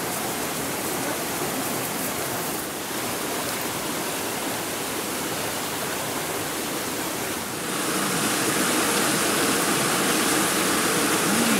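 Rushing stream water, a steady noise. It gets louder and brighter about eight seconds in, where a small waterfall spills into the stream.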